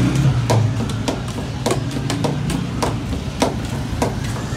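Metal ladle clinking and knocking against steel pots and a broad steel tray as broth is ladled, a dozen or so sharp clanks at an irregular pace, over a low steady hum.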